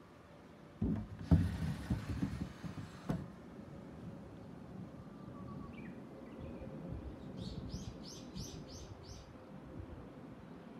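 Wooden shoji sliding door rumbling along its track as it is slid open, stopping with a knock about three seconds in. Later a bird calls: a few chirps, then a quick run of about six high notes.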